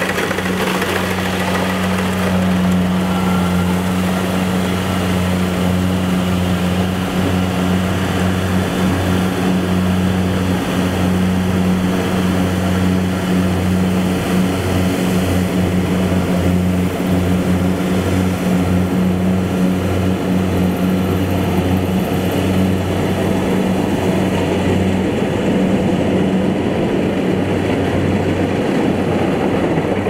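Kubota combine harvester's diesel engine running steadily with a low, even hum; the higher hiss thins out over the last few seconds.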